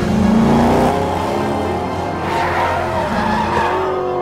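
Race cars skidding with engines running, tyres squealing as they slide, over film music.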